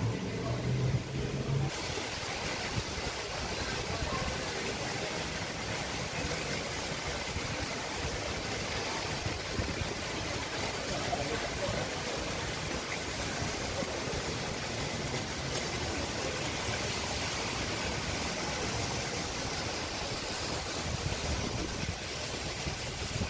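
Steady, even rush of falling and splashing water from a large park cascade fountain, coming in abruptly about two seconds in.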